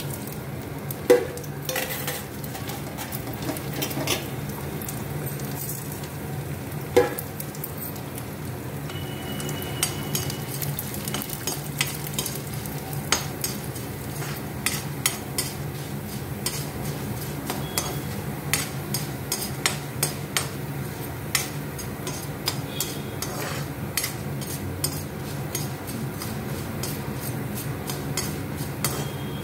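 Urad dal, dried red chillies and seeds sizzling in hot oil in a kadhai as a tadka, while a spatula stirs and scrapes them with frequent small clicks against the pan. The dal is being roasted in the oil. There are two louder knocks of the spatula on the pan, about a second in and about seven seconds in.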